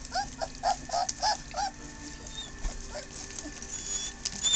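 Squeaks from 24-day-old German Shorthaired Pointer puppies crowding a feeding pan: a quick run of six or seven short, high squeaks over the first second and a half, then quieter.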